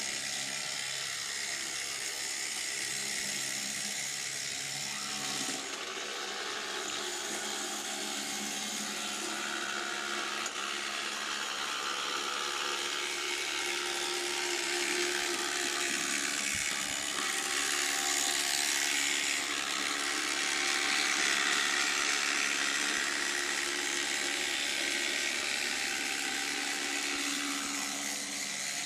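H0-scale model tram with a Bec-Kits motor drive running on its track: a steady whirring of the small electric motor and gears, with the wheels rolling on the rails. It grows somewhat louder in the second half.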